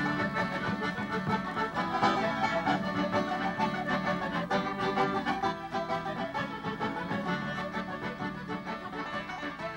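Instrumental Irish reel led by piano accordion, with banjo, acoustic guitar and bodhrán, growing gradually quieter over the last few seconds.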